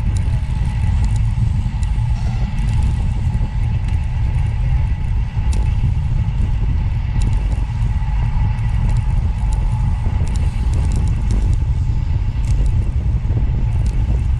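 Steady low rumble of road noise from a moving vehicle, heard inside the cabin.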